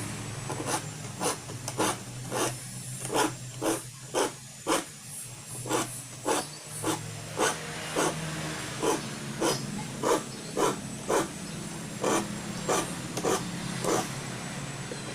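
Hand saw's teeth being sharpened with a hand file: steady, even rasping strokes, nearly two a second, which stop shortly before the end.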